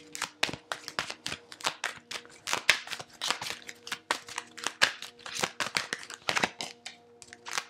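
Tarot deck shuffled by hand: a quick, uneven run of card flicks and slaps, several a second.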